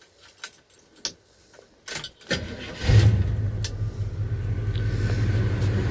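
Key clicks at the ignition, then the 1975 Chevrolet C10's 350 V8 is cranked by the starter and catches about three seconds in, settling into a steady idle.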